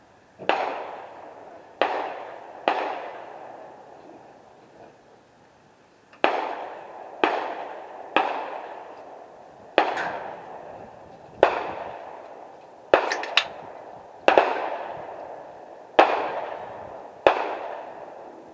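Gunshots on a shooting range: about a dozen shots at uneven spacing, some under a second apart and others a few seconds apart. Each crack has a long echo that fades away.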